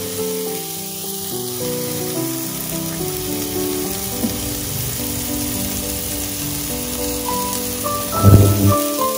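Oil sizzling steadily in a pan with chopped onion, chili and garlic, under background music of stepped held notes. About eight seconds in, a loud thump and a burst of louder sizzling as sliced pig heart goes into the hot oil.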